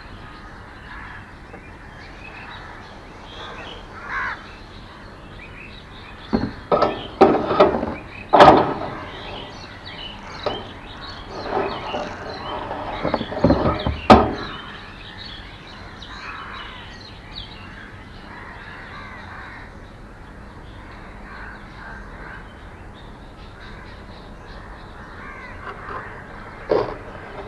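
Crows cawing loudly in two bouts of several harsh calls, about six and twelve seconds in, and once more near the end, over steady faint chirping of small birds.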